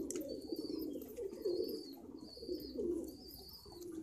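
Domestic pigeons cooing: low, wavering calls that rise and fall without a break.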